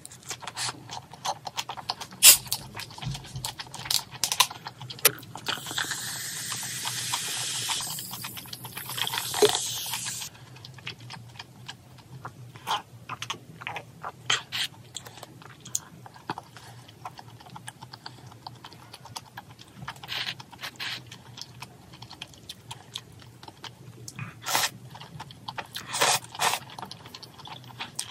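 Close-miked mukbang eating sounds: chewing and mouth smacks of someone eating a leaf wrap of jokbal (braised pig's trotters), in many short, sharp clicks. A steady hiss runs from about six to ten seconds in.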